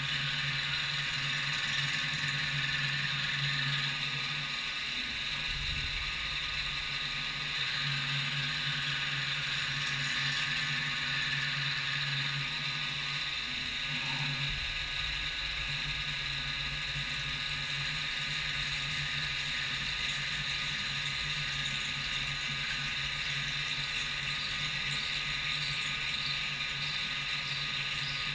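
CNC milling machine running a machining cycle on a metal mounting block, a steady hiss and whine with a low motor hum that drops out briefly a couple of times in the first half.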